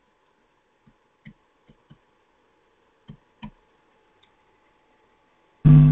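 Faint steady hum with a handful of soft knocks in the first half. Near the end a loud, steady electronic buzz cuts in suddenly: a glitch in the call audio as the lecturer's computer freezes.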